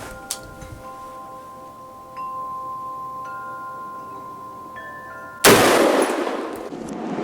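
Wind chimes ring with steady, overlapping tones. About five and a half seconds in, a sudden, very loud blast of gunfire from an AR-15 pistol breaks in and carries on past the end.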